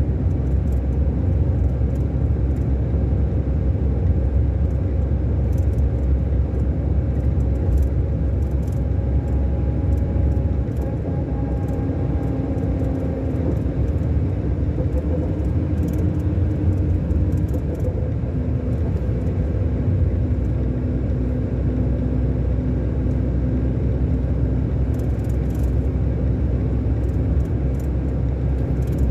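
Scania K-400 Euro 5 diesel engine of a double-deck coach running steadily with a low rumble. Its pitch shifts slightly now and then, and faint light rattles come and go.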